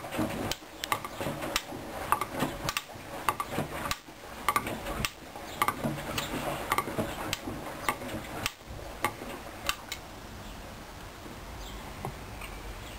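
Hoover Dyn10124Dp washing machine drum turning during a rinse, with jackets inside clinking and clicking irregularly against the drum. The clicks thin out about ten seconds in, leaving a steadier, quieter running sound.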